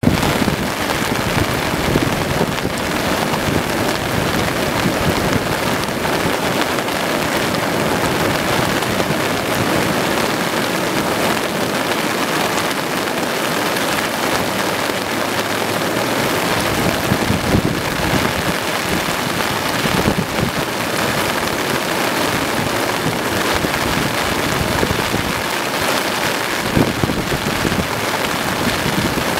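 Steady rushing of a river in flash flood, muddy water churning over standing waves, with rain falling.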